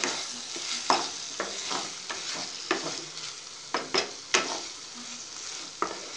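Bread halwa mixture (fried bread pieces soaked in sugar syrup, with milk just stirred in) sizzling in a nonstick pan as a spatula stirs it. Irregular sharp scrapes and knocks of the spatula against the pan sound over the steady sizzle, the loudest about four seconds in.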